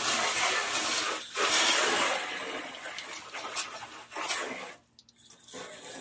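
Garden hose spray nozzle jetting water onto the side of an aluminium jon boat hull: a steady hiss of spray and spattering water. It stops for about half a second a little before the end, then starts again.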